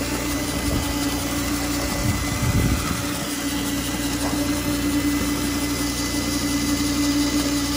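DeWalt cordless drill driving a tin-cutter attachment, running steadily with a constant whine as it shears through a corrugated metal roofing panel.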